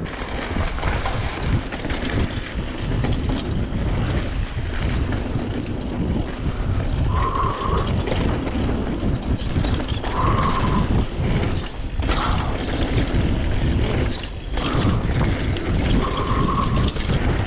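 Wind buffeting an action camera's microphone while a Kona Stab Supreme downhill mountain bike rattles and knocks over a rough dirt trail at speed. There are three short higher-pitched whirs along the way.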